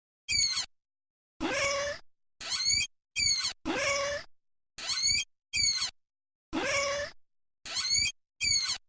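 Cat yowling in about ten short cries one after another, each broken off by a brief silence. Some cries are longer, with a rising and falling pitch, and others are shorter and shriller. These are howls of protest at the food.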